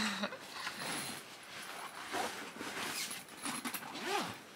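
Irregular rustling and handling noises, with a short rising-and-falling pitched sound near the end.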